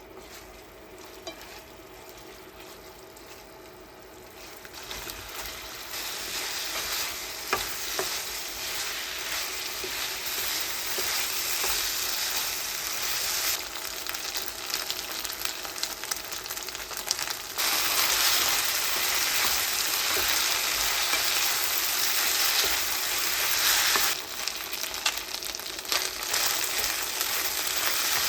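Sundae (Korean blood sausage) sizzling as it is stir-fried in a pan. The sizzle is faint at first, builds a few seconds in, and grows louder again past the middle.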